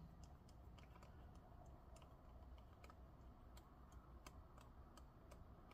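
Faint, irregular small clicks of a precision screwdriver driving the tiny screw that holds down an M.2 NVMe SSD in a laptop, over near silence.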